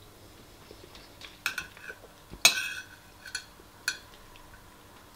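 Metal spoon clinking and scraping against a ceramic bowl while scooping rice: about six short clinks with a brief ring, the loudest about two and a half seconds in.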